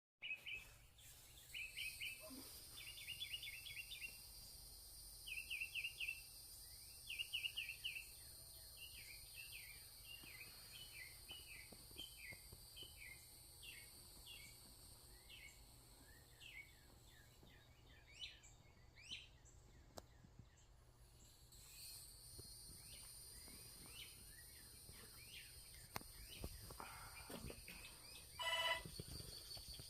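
Faint birdsong of quick chirps and trills, repeated throughout, with a louder call near the end. Behind it is a steady high-pitched ringing drone that stops for a few seconds around the middle and then returns.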